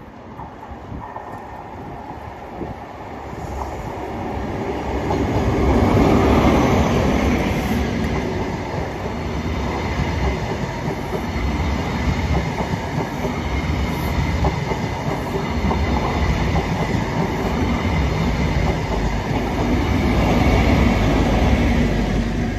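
Short HST formation of two Class 43 diesel power cars and Mk3 coaches passing: the sound builds as the leading power car approaches and is loudest about six seconds in, the coaches rumble past, and it swells again as the trailing power car goes by near the end.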